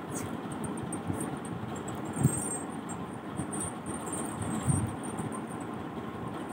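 Small silver chain ornaments jingling and clinking faintly as they are handled, with a couple of soft knocks.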